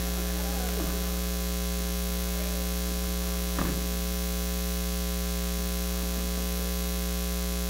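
Steady electrical mains hum, a low buzz with a ladder of higher overtones, carried through the sound system. One brief faint sound breaks in about three and a half seconds in.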